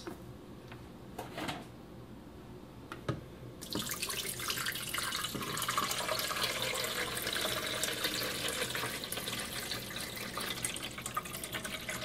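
Filtered water poured from a pitcher into the water reservoir of a Keurig B140 coffee brewer, a steady splashing stream that starts about four seconds in and runs on, after a couple of light clicks.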